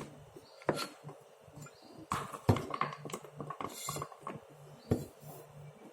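Kitchen utensils knocking and clinking against cookware, with a few sharp knocks, the loudest about two and a half seconds in and another near five seconds.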